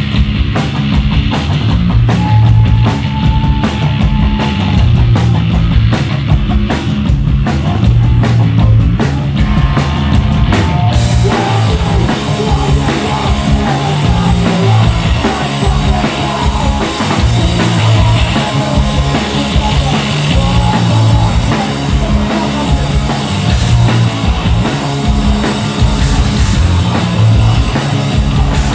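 Live hardcore band playing heavy distorted guitar, bass and drums in a steady pounding rhythm. About eleven seconds in, the cymbals come in and the full band fills out.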